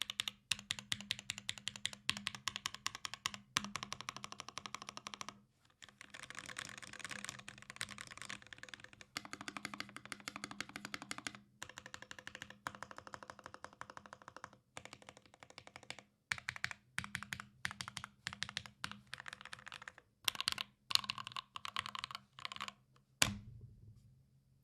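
Typing on a custom mechanical keyboard with a carbon fiber plate, lubed Gateron Black Ink linear switches and GMK keycaps: rapid runs of keystrokes in bursts with brief pauses between them. One louder key stroke lands near the end, then the typing stops.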